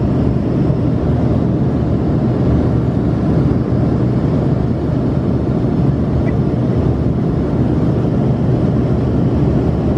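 Steady engine and airflow noise inside the cabin of an Embraer ERJ-135 regional jet in the climb after take-off, its two rear-mounted Rolls-Royce AE 3007 turbofans giving an even, low rumble.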